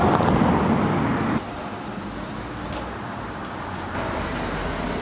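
Street traffic noise: a loud rush of road noise that cuts off suddenly about a second and a half in, then quieter steady traffic.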